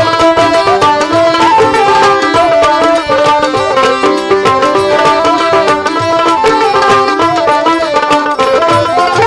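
Live Baul folk music, an instrumental passage between sung lines: a melody on plucked strings and flute over a steady dhol drum beat.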